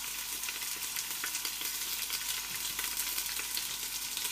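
Chopped onion and carrot sizzling in hot oil in a stockpot as they brown: a steady hiss with fine crackling.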